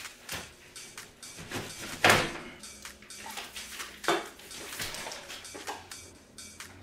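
Metal grill parts and their plastic wrapping handled while being unpacked: irregular clinks, clatters and rustling, with a sharp knock about two seconds in and another about four seconds in.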